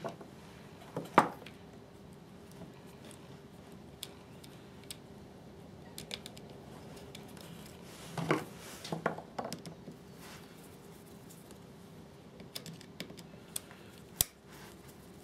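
Small clicks and rattles of hands fitting a carbon brush and its spring back into the plastic brush holder of an electric chainsaw motor, ending with a screwdriver on the holder's screw. The sharpest clicks come about a second in, in a cluster past the middle, and once near the end.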